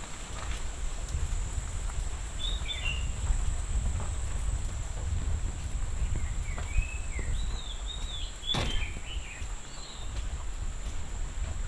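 Birds chirping in short scattered calls, a few about two to three seconds in and a cluster from about six to nine seconds, over a steady high insect drone and a low rumble. There is one sharp click about eight and a half seconds in.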